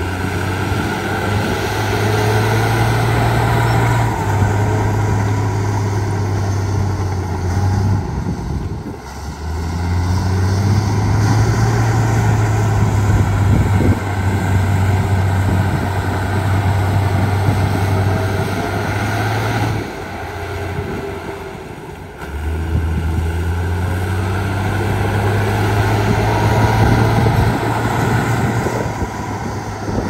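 Heavy diesel engine of an earthmoving machine working under load, running hard for long stretches and easing off briefly twice, about a third and two-thirds of the way through.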